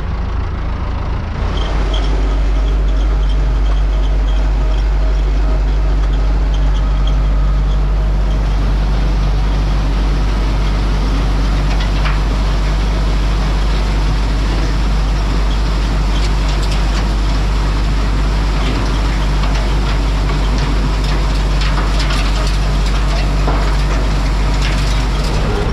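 Ursus 4512 tractor's engine running steadily under load while it drives a wuffler turning straw. It gets louder about a second and a half in as it takes up the work, with faint rattles over the top.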